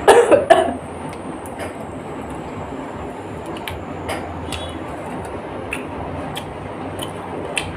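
Eating sounds: chewing and tearing fried chicken by hand, scattered small clicks and smacks over a steady background hiss, with a brief louder sound about half a second in as a drumstick is bitten into.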